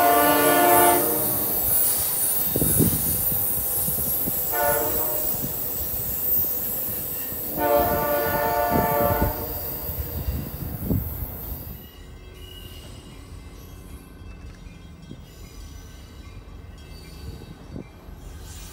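Amtrak Acela Express trainset pulling away with its horn sounding three times: a blast that ends about a second in, a short one, then a longer one, over the rumble of the train. About twelve seconds in, this gives way to a much quieter, steady distant train sound.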